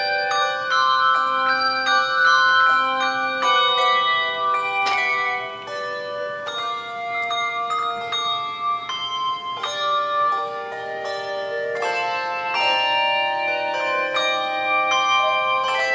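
Handbell choir playing a piece: many handbells struck in turn and in chords, each tone ringing on and overlapping the next.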